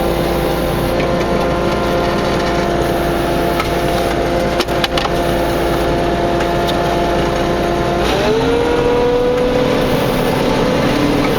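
Combine harvester running steadily with a whining hum. About eight seconds in its pitch shifts, and a few light clicks come near the middle.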